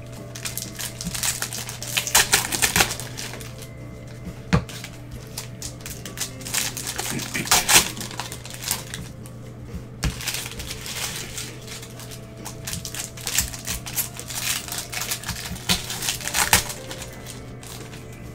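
Foil baseball-card pack wrappers crinkling and stacks of cards being shuffled and handled in gloved hands, in several bursts with a few sharp clicks, over background music.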